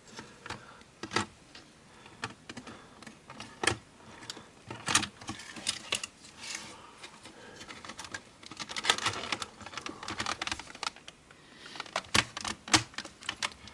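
Irregular clicking and light clattering of plastic and metal parts as a Sony Video Walkman's circuit boards and housing are handled and pressed back together, with small bunches of quick clicks about a third of the way in, around two-thirds of the way in and near the end.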